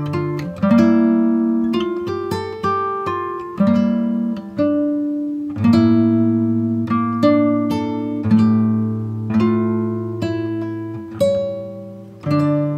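Background music of plucked acoustic guitar, a run of picked notes and chords that each ring and fade.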